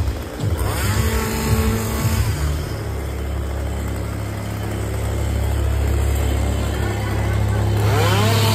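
Engine noise of a passing parade float: a steady low drone, with a motor revving up and dropping back near the end.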